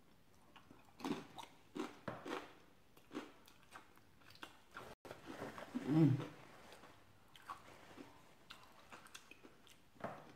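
Close-miked chewing of a mouthful of chili with melted cheese: irregular wet, smacking mouth sounds, with a brief louder hum about six seconds in.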